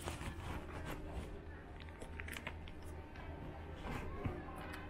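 Airport departure-gate ambience: a steady low hum under distant murmured voices of waiting passengers, with scattered small clicks and knocks.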